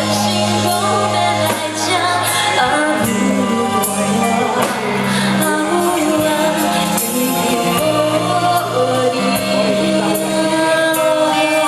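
Live band playing a pop ballad with a steady bass line and sustained keyboard-style notes, with singing over it.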